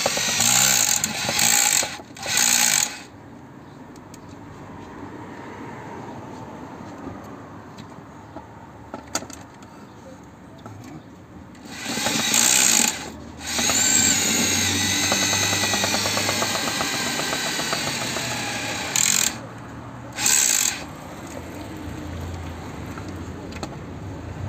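Makita rotary hammer drilling without hammer action, turning a long auger rod horizontally through soil. It runs in short bursts of a second or so with pauses, then a longer run of about five seconds with a wavering whine. The owner puts its poor progress down to the old tool's worn gears, the clutch slipping like a ratchet.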